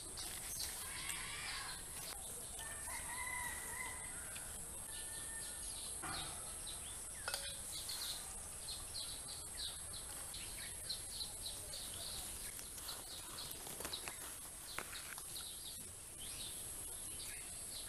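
Rooster crowing in the first few seconds, then a small bird chirping in a quick repeated series, over a steady high-pitched hiss.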